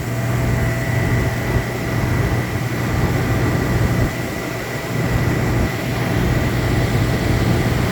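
A 1967 Carrier 38AB 10-ton air-conditioning condensing unit running steadily: a low machine hum under the even rush of the condenser fan, with a faint thin high whine.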